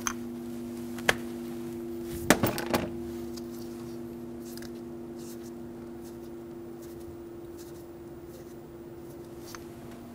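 Wire strippers snipping and pulling insulation off fuel injector harness wires: a few sharp clicks, the loudest cluster about two to three seconds in. A steady low hum runs underneath.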